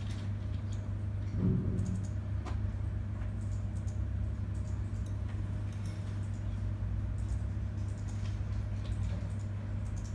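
A few faint computer-mouse clicks over a steady low hum, with a brief soft thump about a second and a half in.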